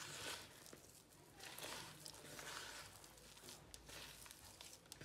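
Fingers squeezing and pressing soft, crumbly butter-flour-egg dough against the side of a plastic bowl: faint, repeated squishing and rubbing, a new push about every second.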